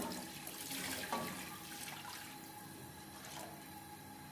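Water poured into a pot of fried masala, splashing and gushing. It starts suddenly and tails off after about two seconds.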